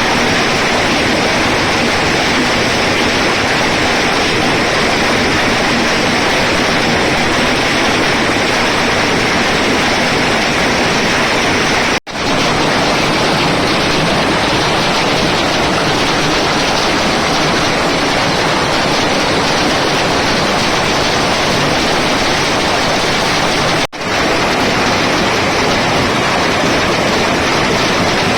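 Hailstorm: hail and rain pelting down in a dense, steady, loud hiss. The sound cuts out for an instant twice, about twelve and twenty-four seconds in.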